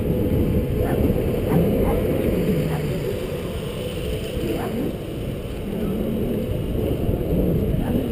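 Wind buffeting and road rumble on a bicycle-mounted action camera's microphone while riding, with a few light knocks from the bike.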